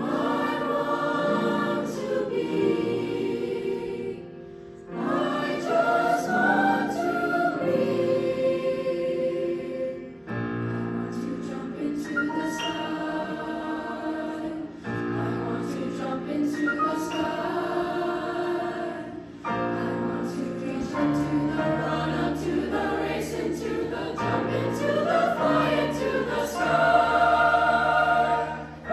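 A high school ninth-grade choir singing in parts, in sustained phrases broken by short pauses for breath, about every four to six seconds.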